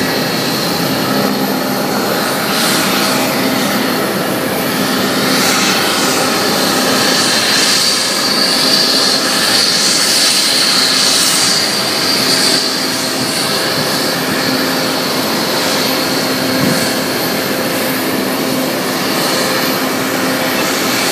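Jet engines of the Shuttle Carrier Aircraft, a four-engined Boeing 747 carrying Space Shuttle Endeavour, running as a steady roar with a high whine that swells in the middle and then eases.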